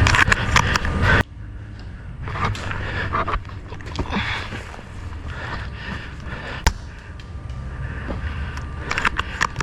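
Airsoft guns firing: a quick string of sharp cracks in the first second, a single crack about two-thirds of the way through and another flurry near the end, over steady rustling and scraping noise.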